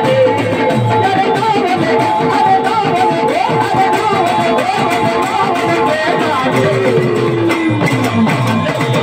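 Live dandar folk music accompanying the dance: a steady held drone note under a wavering melody, with a beat running beneath. Near the end a long falling slide in pitch stands out.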